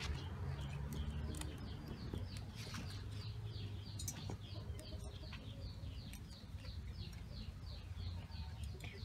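A bird calling a short, high, falling note over and over, about three times a second, over a low steady rumble and a few scattered clicks.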